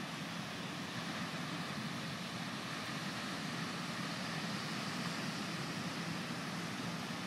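Steady rushing noise of ocean surf and wind at the shore, with a faint low hum underneath.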